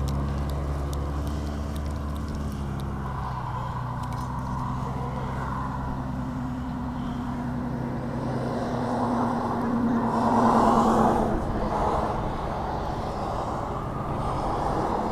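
Road traffic: a steady low engine hum, with one vehicle passing that grows louder to a peak about ten seconds in and then fades.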